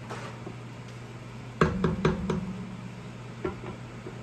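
A cooking utensil knocking against a pot of boiling pasta: four quick knocks with a short ringing tone about a second and a half in, then two lighter taps near the end.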